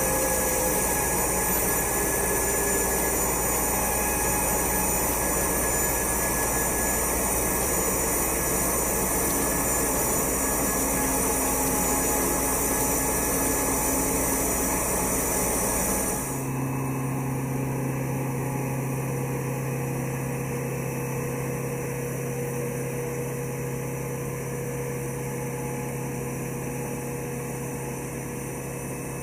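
Steady mechanical drone of machinery running while a C-5 Galaxy's main landing gear is cycled on jacks in a gear swing. About halfway through it changes abruptly to a slightly quieter, lower steady hum with one strong low tone.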